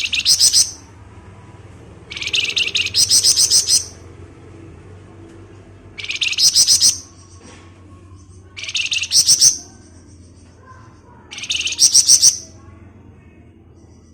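Caged flamboyan songbird singing in five loud bursts of rapid, high, chattering notes, each about a second long and a couple of seconds apart: the fast, dense 'ngebren' song that keepers play to set other flamboyan birds singing.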